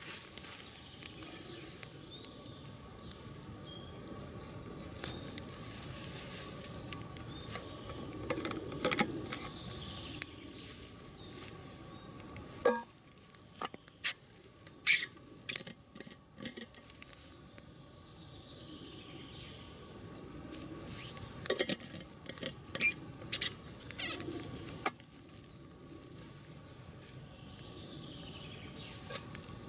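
Handling noises beside a small wood-burning camp stove: scattered sharp clicks and knocks, in two clusters about halfway through and again later, as a steel vacuum flask is gripped and worked.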